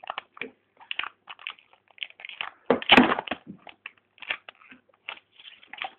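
Plastic film wrapping being peeled and torn off a boxed iPod Touch by hand, crinkling and crackling irregularly, loudest about three seconds in.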